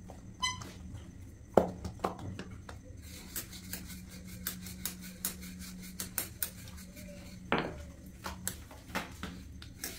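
Metal kitchen utensils clinking, tapping and knocking against cookware: a short metallic ting about half a second in, then a run of sharp clicks and knocks over a steady low hum.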